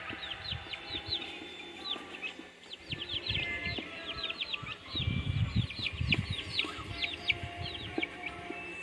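A brood of young chicks peeping steadily, many short high peeps that each fall in pitch, overlapping one another. Some low knocks and rustling come about five to six seconds in.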